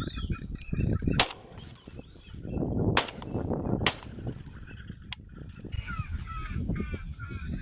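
Three shotgun shots fired at flying birds: one about a second in, then two close together around three and four seconds in. Birds are calling before the first shot and again near the end.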